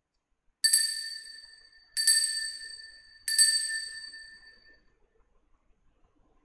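Altar bell struck three times at the elevation of the chalice during the consecration. Each strike gives a clear, high ring that dies away over about a second and a half, with the strikes about a second and a quarter apart.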